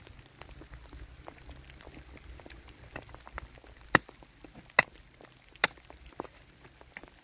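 A hand digging tool striking stony soil: three sharp knocks a little under a second apart about halfway through, among faint small clicks and rustles.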